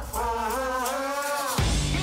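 Background music: a long, wavering melodic note over a low bass, changing to a new held low note about one and a half seconds in.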